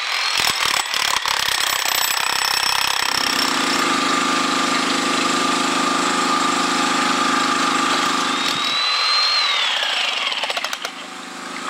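Electric demolition hammer chiselling away the top layers of brick and stone, running continuously with a dense hammering rattle. A steady hum joins in about three seconds in and drops back near the end.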